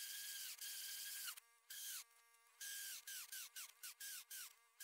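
Pressure washer running with a steady spray hiss and a high motor whine. About a second in, the trigger is released and the whine falls away. The trigger is then pulsed on and off in quick short bursts, the whine dropping in pitch each time it stops.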